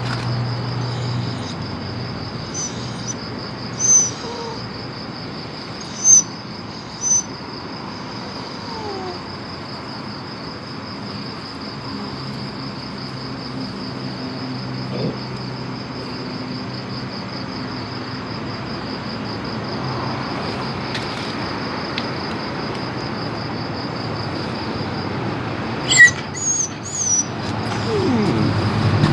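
Crickets trilling steadily in a high, even band, with a few short high chirps a few seconds in and again near the end, and a low falling cry just before the end.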